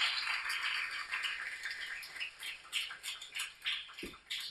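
Small audience applauding, the clapping thinning out into a few scattered claps in the second half.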